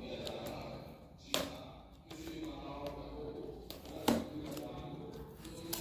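A person's voice talking, with two sharp clicks, a little over a second in and about four seconds in, and a smaller one near the end.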